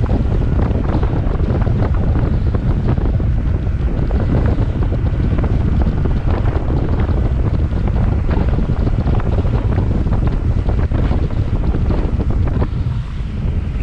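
Strong wind buffeting the microphone in a loud, constant low rumble with crackling gusts, over choppy sea water; it eases slightly near the end.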